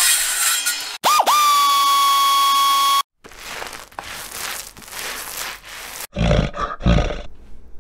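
Channel-intro sound effects. About a second in, a held pitched tone starts with a dip and lasts about two seconds. Then comes a noisy stretch, and near the end a deep roar in two heavy pulses.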